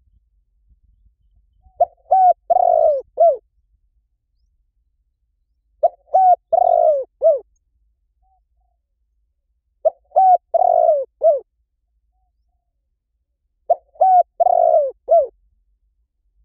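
Spotted dove cooing: four phrases about four seconds apart, each made of a few short coos and one longer drawn-out coo near the end.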